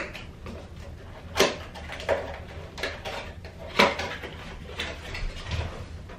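Small cardboard retail box being opened by hand: a series of sharp snaps and scrapes as the flaps are pulled open and the card is handled, the loudest about a second and a half in and just under four seconds in.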